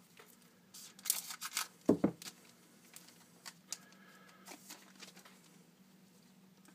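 Foil trading-card pack wrapper crinkling as cards are slid out and handled, in a short flurry of crackles about a second in with a brief thump near two seconds, then a few faint ticks of card handling. A steady low hum runs underneath.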